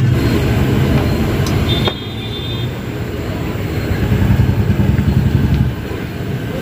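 Low, steady rumbling roar of a gas burner under a wok of simmering gravy. It drops abruptly about two seconds in and swells again for a second and a half near the end. A short high squeak and a click come around the drop.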